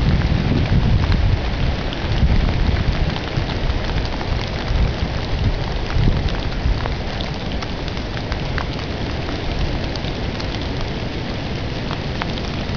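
Hurricane rain and wind: a steady hiss of rain with scattered drop ticks, over a low rumble that is heaviest in the first couple of seconds and then eases.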